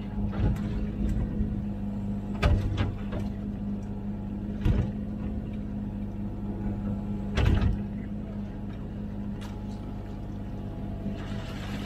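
Komatsu PC16 mini excavator's diesel engine running steadily, heard from the operator's cab, with four or five sharp clunks from the digging arm and bucket working in the trench. A hiss comes in near the end.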